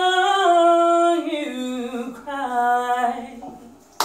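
A woman singing solo, unaccompanied: a long held note, then a phrase stepping down in pitch that dies away near the end.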